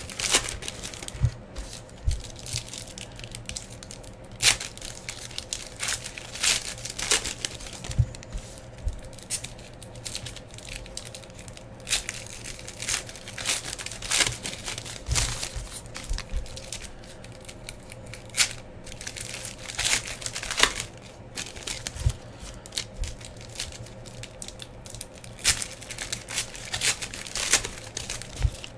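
Foil trading-card pack wrappers being torn open and crinkled by hand: irregular sharp rips and crackles, some louder than others, scattered through the whole stretch.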